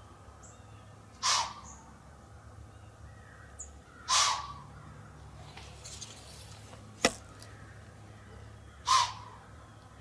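A crow cawing three times, single harsh calls spaced several seconds apart, with one sharp crack about seven seconds in.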